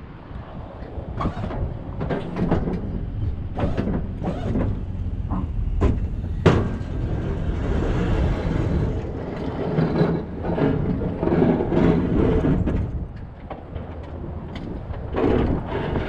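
Pickup truck's engine running as it plows a snowy driveway with a Boss DXT V-plow, the steel blade scraping and clanking over the pavement. Repeated knocks through the run, with a sharp one about six and a half seconds in.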